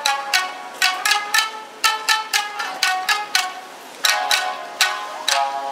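Tsugaru shamisen ensemble playing together: sharp, percussive plectrum strikes on the strings in a quick run of notes. There is a brief lull about three and a half seconds in, then strong strikes start again.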